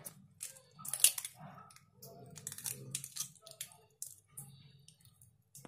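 Hen's egg being cracked over a bowl: light taps and shell crackles, the sharpest about a second in, then small clicks as the shell is pulled apart.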